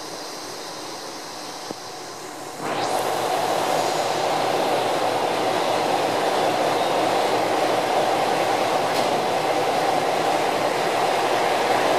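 JR Shikoku KiHa 2000 series diesel express train running as it creeps along the platform to couple with another train. Its steady engine noise jumps sharply louder about two and a half seconds in.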